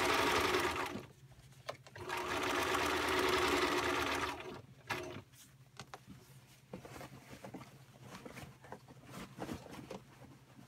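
Bernina 1010 home sewing machine stitching in two runs: a short one ending about a second in and a longer one of about two seconds. Fabric rustling and small clicks follow as the bag is handled.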